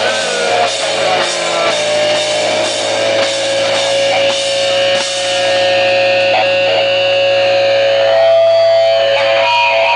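Live punk rock band playing loud distorted electric guitars over driving drums. About halfway through, the drums stop and the guitars are left ringing with held, droning notes as the song winds down.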